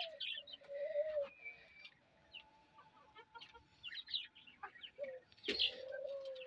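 Birds calling: scattered short high chirps and a few drawn-out lower calls, the longest near the end, over light crackling and clicks from bread being broken by hand into a metal bowl.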